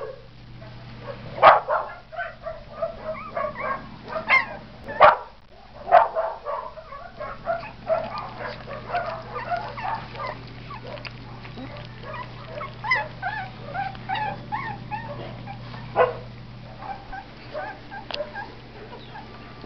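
A litter of Blue Heeler, Red Heeler and Texas Heeler puppies squeaking, whimpering and yipping over and over while crowded around a pile of dry kibble, eating. A few louder sharp noises stand out, and a steady low hum runs underneath.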